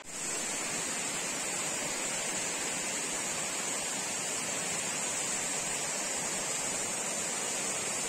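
Rushing water of a waterfall's stream cascading over rocks: a steady, even rush.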